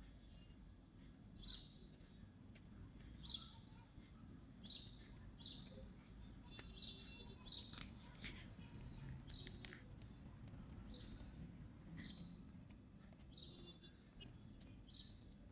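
Faint bird chirping: short, high chirps repeat about every one to two seconds, with a few sharp clicks near the middle.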